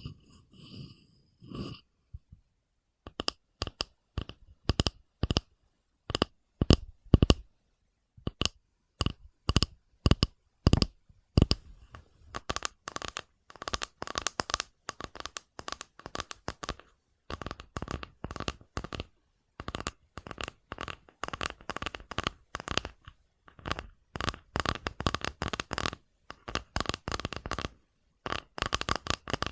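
ASMR tapping and knocking on a hard object that rings with a few clear pitches at each tap. The taps come singly and spaced apart at first, then turn into quick, dense runs from about twelve seconds in.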